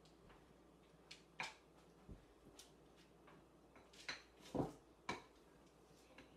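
A spoon stirring stiff, sticky sugar cookie dough in a glass mixing bowl, giving faint, irregular clicks and knocks against the bowl, about seven over several seconds. The strongest knock comes about four and a half seconds in.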